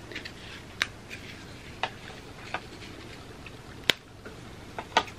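Graham cracker being snapped into pieces by hand: a series of short, crisp cracks, the loudest about four seconds in.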